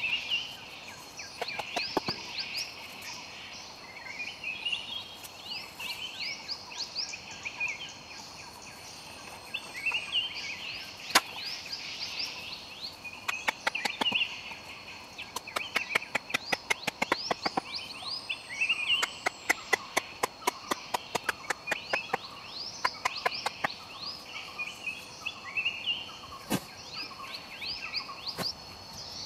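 Sharp wooden knocks of bamboo stakes being chopped and struck into the ground, scattered at first, then a quick regular run of about three blows a second through the middle, with a few more near the end. Behind them, quick rising chirps of forest wildlife and a steady high insect tone.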